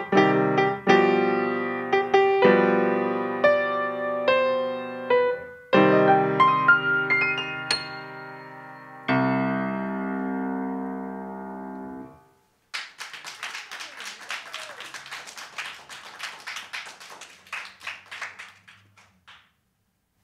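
Grand piano playing the closing phrases of a piece, ending about nine seconds in on a final chord that rings out and dies away over a few seconds. Then an audience applauds for about seven seconds, the clapping thinning out and stopping near the end.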